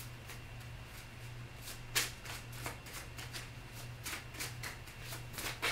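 A deck of oracle cards being shuffled by hand: a run of short, irregular card clicks and flicks.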